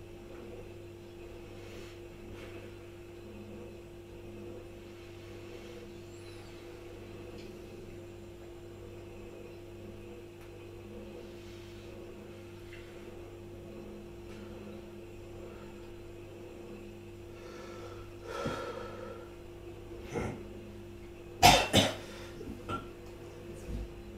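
Steady low room hum, then a person coughing several short times near the end, the loudest a quick double cough.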